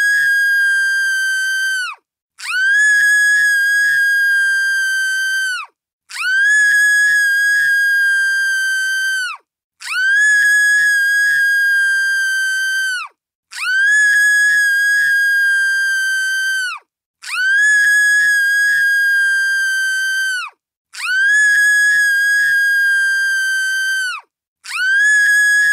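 A woman's high-pitched scream, one long held cry of about three seconds that dips at the very end, repeated the same way again and again with a short silence between each.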